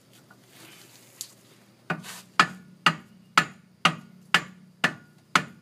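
A rubber mallet strikes the front wheel hub in a steady series of dull blows, about two a second, starting about two seconds in. The blows drive the hub onto the CV axle's splines.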